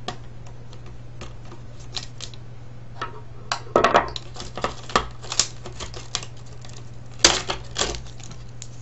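Plastic and metal parts of a DVD drive mechanism clicking, rattling and knocking as it is pulled apart by hand. There are scattered clicks, with bursts of clatter about four seconds in and again, loudest, about seven seconds in, over a steady low hum.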